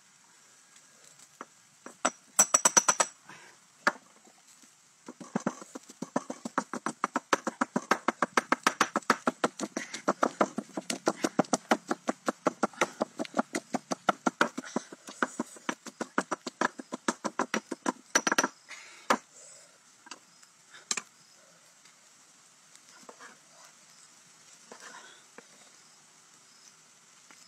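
Rapid, even knocking strokes from hand food preparation at a wooden slab, about five a second, running for some thirteen seconds from about five seconds in. A short burst of louder knocks comes about two seconds in, and a few faint taps follow near the end.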